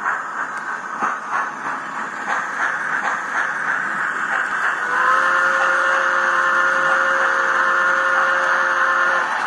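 Sound decoder of a Bachmann HO scale ALCO steam locomotive, played through its small onboard speaker. It gives a regular run of steam chuffs while the model moves wagons. About five seconds in comes one long, multi-tone steam whistle blast that cuts off abruptly near the end.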